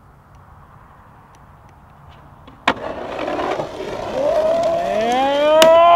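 Skateboard snapping onto a metal highway guardrail with a sharp crack, then its trucks grinding along the rail in a scraping noise that grows louder, with a rising pitched whine over the last two seconds.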